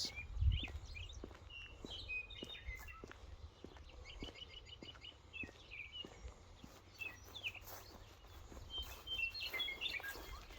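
Small songbirds chirping and calling in short bursts, with a quick run of repeated notes about four seconds in and more calls near the end, over a low outdoor rumble.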